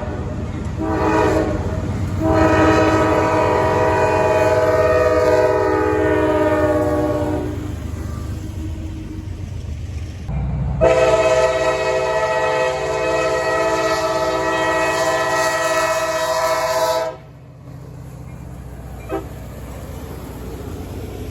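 Diesel locomotive air horn sounding a horn show over the rumble of the train. A couple of short toots come first, then a long blast whose pitch sags a little, a pause, and a second long, steady blast about halfway through. The horn then falls silent and the train's rumble carries on.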